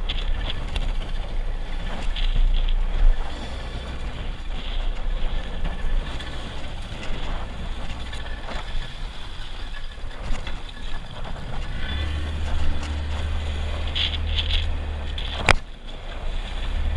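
Small open fishing boat under way over choppy sea: a steady low motor drone with rushing wind and water splashing at the hull. The drone gets louder from about twelve seconds in, and there is one sharp knock near the end.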